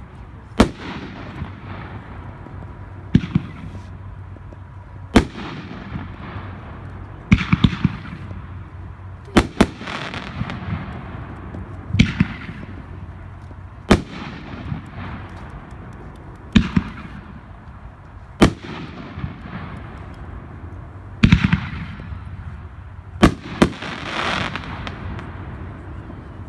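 World Class 'Money Bags' 500-gram consumer firework cake firing, with a loud report about every two seconds, a few of them doubled. Each report is followed by a short fading sizzle from the break.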